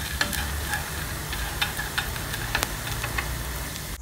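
Dry prawns frying in coconut oil in a pan, with a steady sizzling hiss and light scattered clicks and scrapes as a wooden spatula stirs them. A low steady hum runs underneath.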